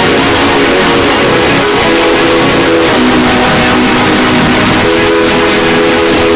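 Heavily overdriven electronic sound effect at full loudness: a harsh, constant noise over a cluster of low steady tones that shift slightly a few times.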